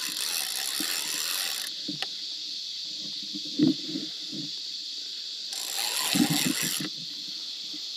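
Spinning reel being wound in spells during the fight with a hooked fish, over a steady chorus of night insects; a sharp knock comes about three and a half seconds in.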